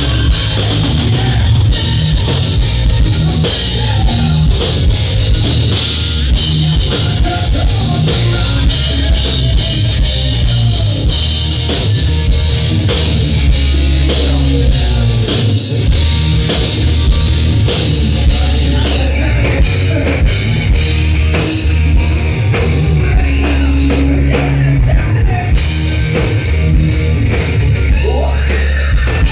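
Live hard rock band playing loud: electric guitar over a pounding drum kit and bass.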